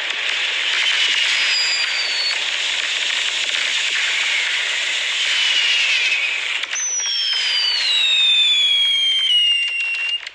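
Fireworks display: a dense, continuous crackle of bursting shells, with a high whistle falling slowly in pitch over the last few seconds.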